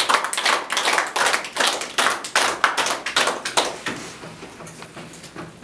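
A group of people clapping, a quick irregular patter of claps that thins out and fades about four seconds in.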